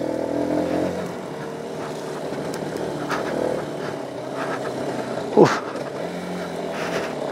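Single-cylinder trail motorcycle engine running under load on a slick dirt climb, its note dropping about a second in and then holding at low revs. A sharp knock stands out about five and a half seconds in.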